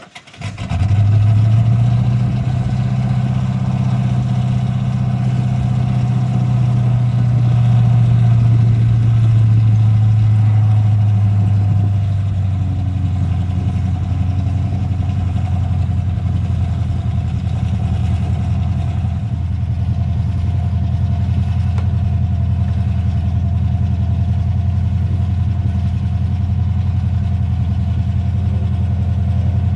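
An off-road race truck's engine idling steadily and loudly close by. It comes in abruptly about half a second in and settles a little lower in pitch around twelve seconds in.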